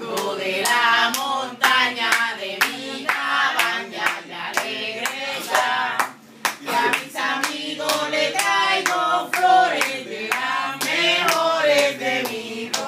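Several voices singing together, with hands clapping a steady beat of about two claps a second.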